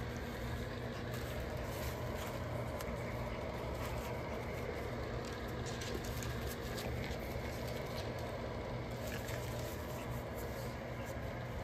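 Steady low background hum, with faint scattered taps and rustles of French bulldog puppies' paws moving over puppy pads.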